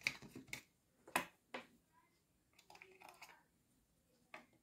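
A few sharp little clicks and a soft scrape of small metal and plastic parts as fingers fit and tighten a small screw in the base of an electric kettle.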